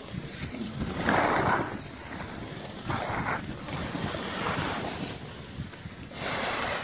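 Skis scraping across packed snow in a series of turns: a hissing scrape with each turn, four or five in all, over wind rumbling on the microphone.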